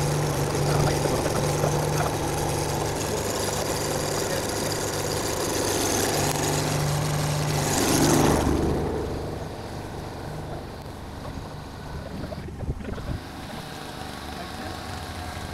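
A motor running with a steady hum, with a louder rush about eight seconds in, after which the sound is quieter.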